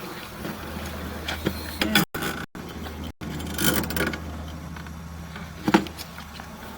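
Irregular mechanical clicks and knocks over a steady low hum, with the sound cutting out completely for an instant three times.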